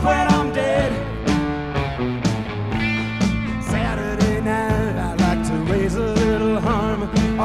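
Rock song playing, an instrumental stretch with a steady drum beat and a lead line that bends up and down in pitch.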